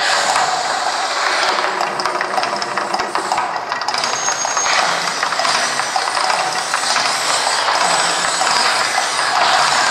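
Fire-and-water volcano show: gas flame jets and fountain plumes making a loud, steady rushing noise with dense crackle.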